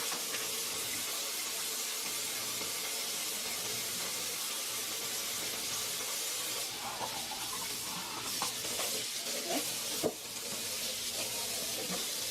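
Hot water running steadily from a kitchen tap into the sink as raw chicken is rinsed under it. From about halfway through come small knocks and clatters of the chicken and container being handled, with one sharper knock near the end.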